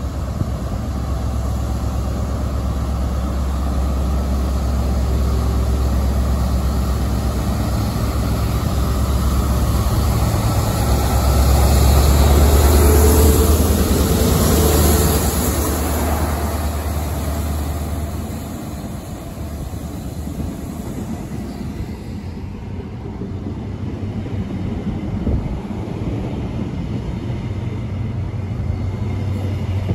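Class 43 HST power car's MTU diesel engine growing louder as the train approaches, loudest as the power car passes close, about halfway through. It then fades to a lower rumble of the Mark 3 coaches' wheels running on the rails.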